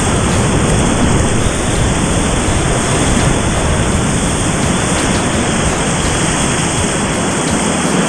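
Loud, steady rush of whitewater rapids heard right at water level from a kayak running them.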